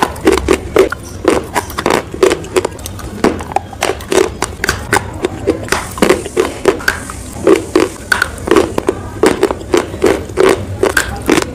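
Close-miked crunching and chewing of hard white chalk-like pieces: sharp crisp crunches, several a second, each with a dull low body.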